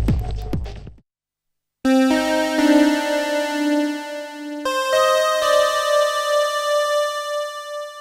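Sustained chords from a Roland Juno-106 analog polyphonic synthesizer, played through the NIGHTVERB stereo reverb unit. They start about two seconds in, after a brief silence, and change a few times, each chord ringing on in a long reverb wash. In the first second, the tail of a record played through the same reverb fades out.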